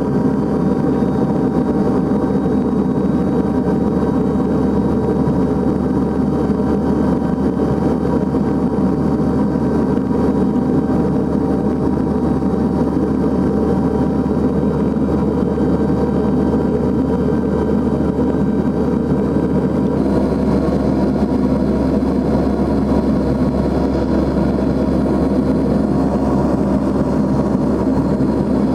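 Cabin drone of a NAMC YS-11's two Rolls-Royce Dart 10 turboprops in the climb: a loud, steady hum with several whining tones on top. About twenty seconds in the tones shift slightly in pitch.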